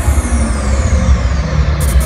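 Loud concert music through an arena sound system, with heavy booming bass and a high tone sliding steadily downward.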